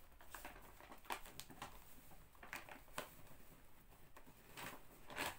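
Faint kitchen handling sounds: a scattering of light taps, clicks and rustles as dough ingredients and utensils are handled.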